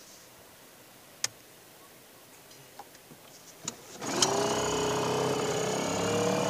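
Yamaha 2 hp two-stroke outboard being pull-started: a tug on the starter cord about four seconds in and the small single-cylinder engine catches at once and keeps running steadily. A single sharp click comes about a second in.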